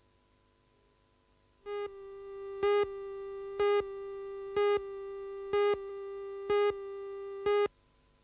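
Videotape countdown leader tone: a steady buzzy electronic tone that starts a couple of seconds in, with a louder beep once a second, six beeps, then cuts off suddenly.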